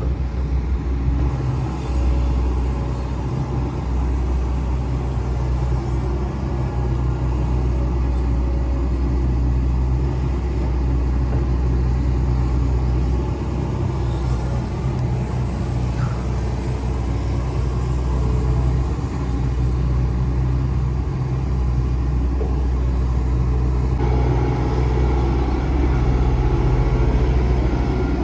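Hitachi Zaxis excavator's diesel engine running steadily while the machine digs: a continuous low rumble that shifts slightly in tone late on.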